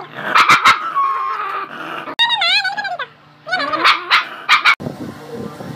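A dog barking a few times, then a high wavering whine, with more short barks or yips after it. The sound cuts off abruptly near the end.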